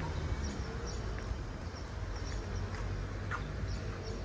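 Open-air ambience: a steady low rumble with small birds chirping in short, scattered calls.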